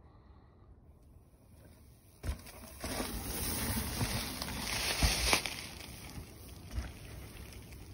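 After about two seconds of near silence, a mountain bike on a dirt trail: wind rushing over the camera microphone and tyres rolling over the ground, with a few short knocks from bumps along the way.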